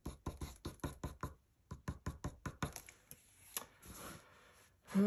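Coloured pencil flicking quick, short strokes across paper: a fast run of light ticks, about eight a second, that breaks off briefly after a second or so, resumes, and thins to a few scattered taps after the middle.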